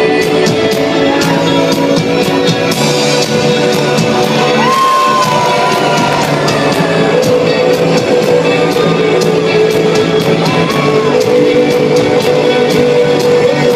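Rock band playing live, with a steady drum beat under sustained chords, heard from the audience with crowd shouts and whoops over the music.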